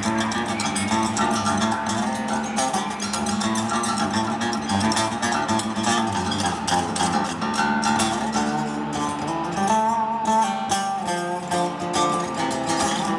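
Guitar-led music with a steady rhythm of plucked and strummed strings.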